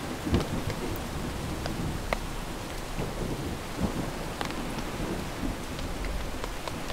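Steady rain falling on a tent in a thunderstorm: an even hiss dotted with scattered sharper drop ticks, over a low rumble of thunder.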